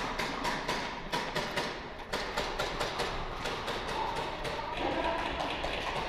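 Sharp, irregular taps and clicks, several a second, in a large echoing warehouse hall during an airsoft game: airsoft shots and BB impacts or footsteps.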